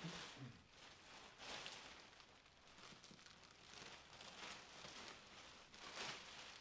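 Faint rustling swishes of material being handled, about five in a row with the strongest near the end.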